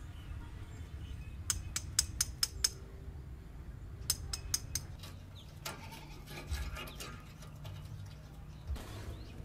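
Unprocessed location audio: a steady low background noise, with two quick runs of sharp knocks over it, about six a second and a half in and five more around four seconds in, then a few fainter knocks later.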